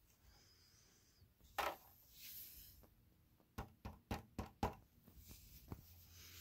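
Plastic Toyota hubcap being handled: one knock, then a quick run of about six clicks and knocks a little past halfway, and one more knock near the end.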